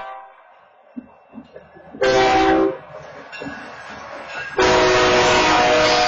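Locomotive multi-chime air horn sounding for a grade crossing: a short blast about two seconds in, then a long blast starting near the end. The train rumbles and knocks faintly between blasts. The engine is blowing its own horn because the crossing's wayside horns are offline.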